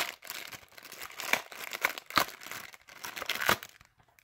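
Foil trading-card booster packs crinkling in irregular crackles as they are handled and slid out of a cardboard box insert.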